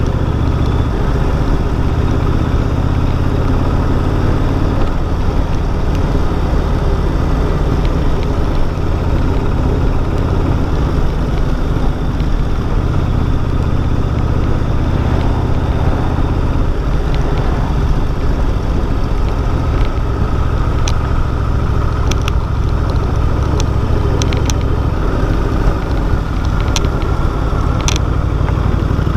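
Cruiser motorcycle's engine running steadily while riding along at road speed, heard from on the bike, with a rush of wind noise over it. A few faint ticks come in the last third.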